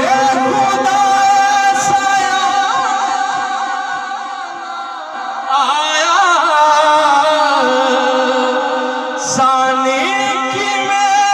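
A man singing a naat through a microphone and PA system, holding long drawn-out notes, with an ornamented run of quick pitch turns about six seconds in.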